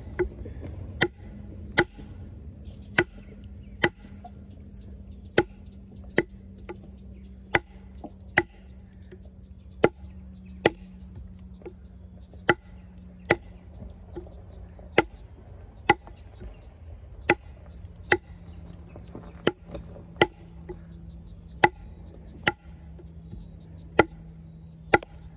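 Extrema Ratio Tuscan's Böhler N690 steel blade chopping into a seasoned log, with steady, evenly paced strokes about one every 0.8 seconds, some thirty chops in all.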